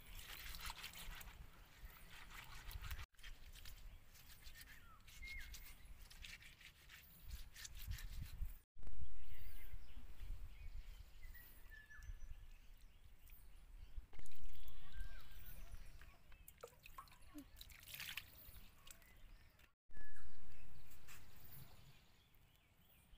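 Outdoor ambience with a few short bird chirps over dripping and trickling water and light rustling. It cuts abruptly several times, and after some cuts it starts louder and then fades.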